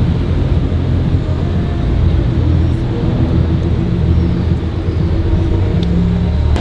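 Car engine running at low revs with a steady low drone that rises and falls slightly in pitch.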